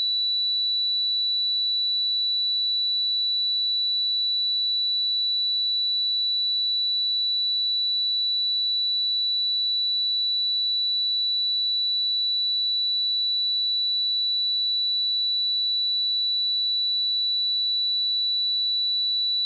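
Steady pure sine-wave test tone at 3951 Hz, a single unwavering high-pitched note held at constant level.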